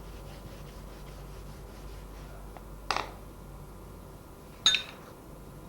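Faint steady background hum, with two short knocks about a second and a half apart, the second with a brief metallic ring.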